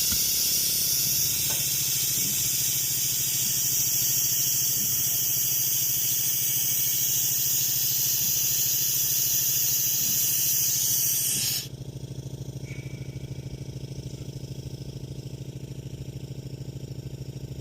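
Air jack hissing loudly as compressed air rushes in to lift the baler, cutting off suddenly about three quarters of the way through. A low steady hum with a fast pulse runs underneath.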